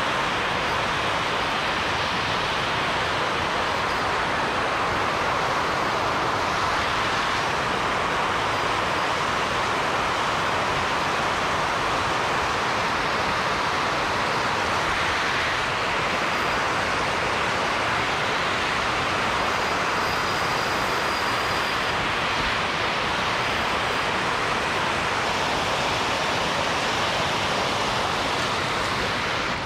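Water rushing over a low weir close by: a steady, even rush that does not change.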